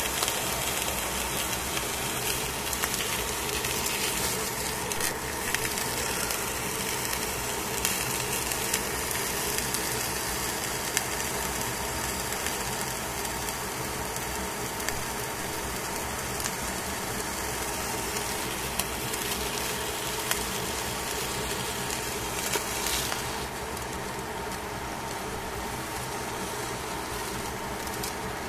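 Fish fillets sizzling on aluminium foil in a hot pan, a steady frying hiss with scattered small pops and clicks, over a faint steady hum.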